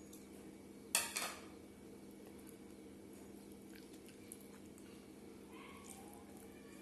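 A brief scrape or clatter against a dinner plate about a second in, twice in quick succession, then a few faint small clicks of eating, over a steady low hum.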